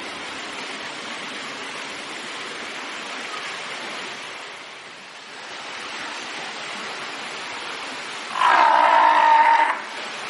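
Steady rush of pool water, then about eight seconds in a Cape fur seal gives one loud call lasting over a second.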